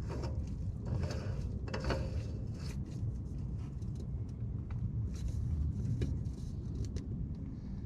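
Scattered light clicks and scrapes as a new oil filter is handled and spun onto its mount by hand, over a steady low rumble.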